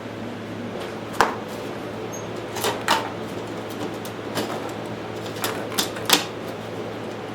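Irregular clicks and knocks of objects being handled and set down, about seven in all, the loudest a little after a second in and near the end, over a steady low hum.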